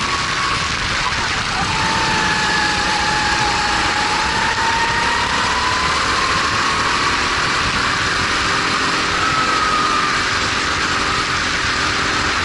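Kart's Honda GX270 four-stroke engine running hard on track, its pitch dipping about a second and a half in, then climbing slowly and falling again near the end as the driver works the throttle through corners. A steady rushing hiss of wind on the onboard microphone runs under it.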